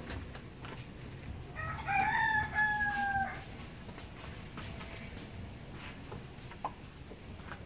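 A rooster crowing once, a single call of under two seconds about two seconds in. Faint clinks of a spoon stirring batter in a steel bowl sound now and then.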